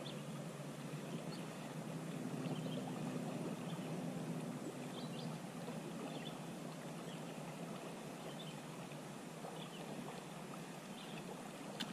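Steady river water rushing and lapping around a canoe, with faint scattered small ticks and splashes.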